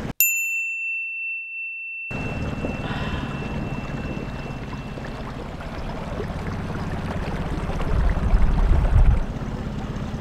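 A single bright chime rings at the start over a silent gap and fades away slowly. Then the dinghy's outboard motor runs steadily under wind noise on the microphone, with a heavy gust about eight seconds in.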